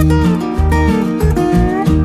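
Background music led by guitar, with plucked notes that slide in pitch over steady bass notes. Near the end a chord is struck and left ringing.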